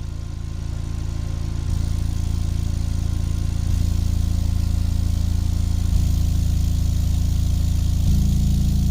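Pyramid Super Pro subwoofer in a sealed home-audio sub box playing a steady 28 Hz test tone, a deep hum with overtones, getting louder in about four steps as the volume is clicked up.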